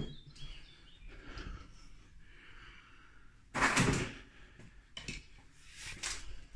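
Handling noise: cloth rubbing over the phone's microphone in a few brief rustles, the loudest about three and a half seconds in.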